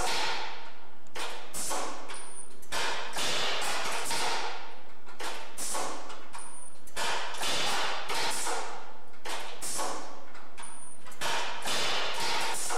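A metal-framed door is cycled in a test rig, banging repeatedly: clusters of loud clattering impacts with a short metallic ring. A short high tone marks a cycle that repeats about every four seconds.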